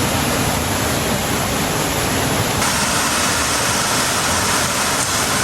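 Waterfall rushing: a steady, dense hiss that turns brighter about halfway through.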